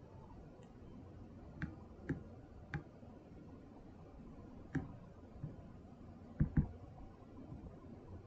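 Computer mouse clicking: about eight short, sharp clicks at irregular intervals, with a louder pair about two-thirds of the way through, over a faint room hiss.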